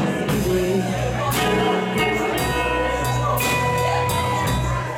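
Live rock band playing: distorted electric guitar, bass guitar and a Ludwig drum kit with cymbal hits, and a long held note in the second half.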